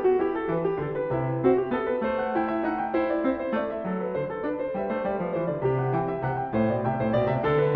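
Piano music playing, a continuous flow of notes.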